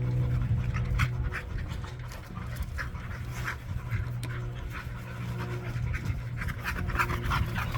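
A dog panting rhythmically, with a steady low hum underneath.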